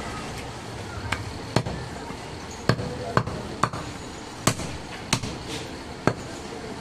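Heavy cleaver chopping goat meat on a wooden log chopping block: about eight sharp chops at uneven intervals.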